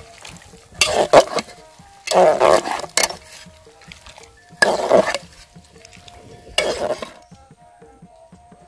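Metal spoon stirring chillies and radish in water in an aluminium cooking pot, clinking and scraping against the pot in four short bursts.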